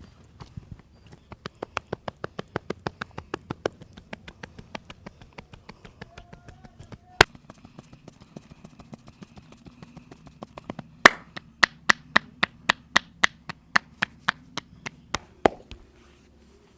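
Rapid rhythmic hand strikes of a head massage, about five taps a second for several seconds. A single loud sharp snap comes about seven seconds in, then a run of louder, sharper strikes at three to four a second near the end.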